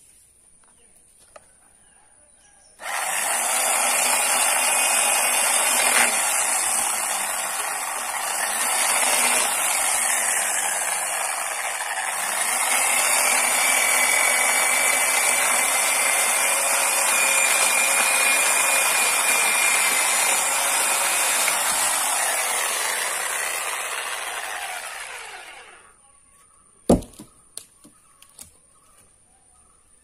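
Corded electric chainsaw starting about three seconds in and cutting through a log for some twenty seconds, its sound sagging and recovering as the chain works through the wood, then dying away. A single sharp knock follows a second later.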